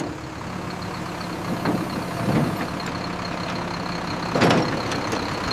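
Truck engine idling steadily, with a few short knocks over it; the loudest comes about four and a half seconds in.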